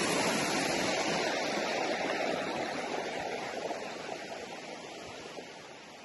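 Creek water rushing and splashing over rocks below a stone footbridge: a steady rush, loudest at first, that fades gradually as the walker moves away.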